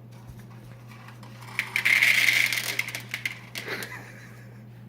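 Servo on a Raspberry Pi cat feeder turning and dry cat food rattling out, starting about one and a half seconds in and lasting about two seconds. A steady low hum runs underneath.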